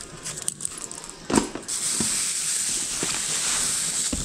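Handbags and clothes being handled in a plastic tub: rustling and small clicks, with a thump about a second and a half in, followed by a steady hiss.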